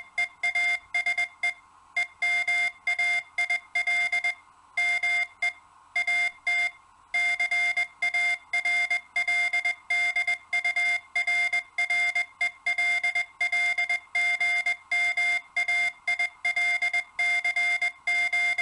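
Morse code sent as CW: a single steady beep tone keyed on and off in short dots and longer dashes, with brief pauses between characters and words.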